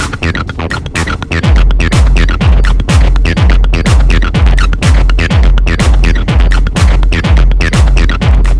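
Electronic dance music with quick high percussion; about a second and a half in, a deep kick drum and bass come in, beating steadily about twice a second.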